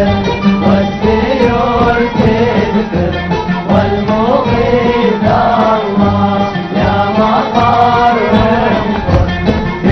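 Yemeni song: a voice chanting a melody over steady musical accompaniment.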